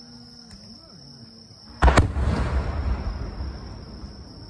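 An aerial firework shell bursting: two sharp bangs in quick succession about two seconds in, followed by a long low rumbling echo that slowly fades.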